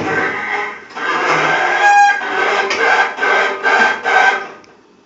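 Washing machine giving off a loud, harsh squeal, like a pig, pulsing in waves for about four and a half seconds before it stops. The owners suspect the drive belt or a stripped drive.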